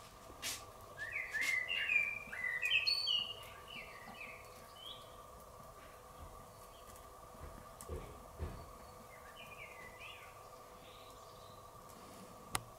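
A small songbird singing a quick run of short chirping notes, with a fainter second phrase later, over a faint steady hum.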